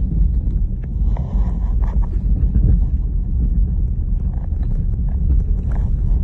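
Steady low rumble of a car driving slowly along a road, heard from inside the cabin.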